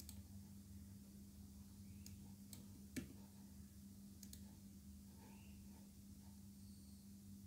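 Near silence with a few faint computer mouse clicks, the clearest about three seconds in, over a low steady hum.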